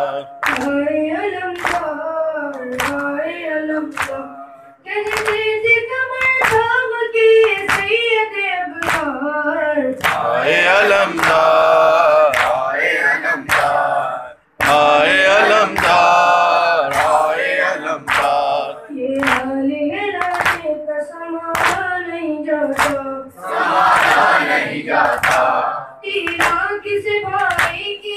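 A boy's voice chanting a noha, a Shia mourning lament, unaccompanied into a microphone. A chorus of other voices takes up the refrain in longer stretches. Throughout runs a steady rhythm of matam, hands striking chests in time.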